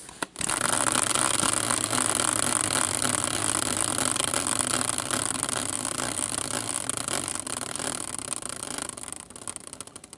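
A prize wheel spinning: a dense run of rapid clicks that thins out and fades near the end as the wheel slows to a stop.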